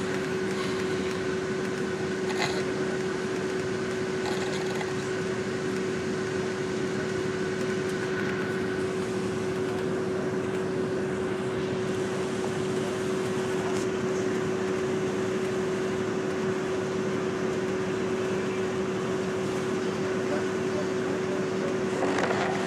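Steady drone inside a bus cabin: engine and ventilation hum with a constant low tone, unchanging throughout.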